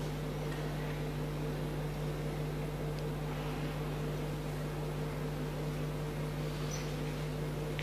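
Steady low hum with an even hiss: room tone with no speech.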